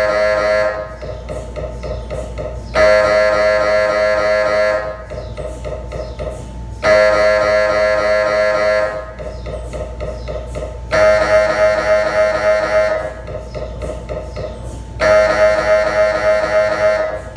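GE MRI scanner's gradient coils running a brain FLAIR sequence: a loud buzzing tone held for about two seconds, repeating about every four seconds, with a softer pulsing buzz in between.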